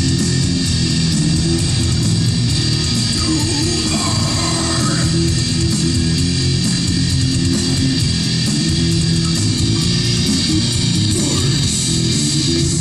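Heavy metal music from a CD on the car stereo: distorted electric guitar and bass at a steady loud level.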